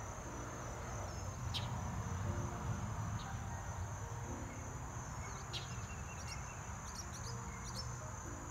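Insects trilling steadily at one high pitch, with a few short high chirps and a faint low rumble underneath.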